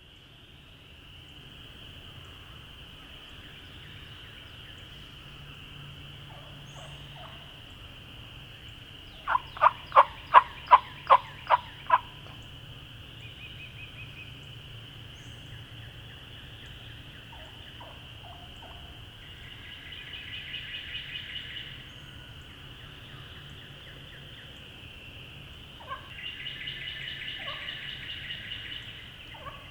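Wild turkeys calling: a loud series of about eight evenly spaced yelps about nine seconds in, and later two softer, rapid rattling calls. A steady high-pitched chorus runs underneath throughout.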